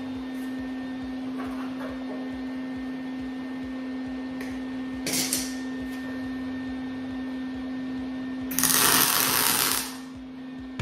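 Arc welding on a steel bed-frame rail: a short burst of welding crackle about five seconds in, then a louder weld of a little over a second near the end. A steady hum runs underneath throughout.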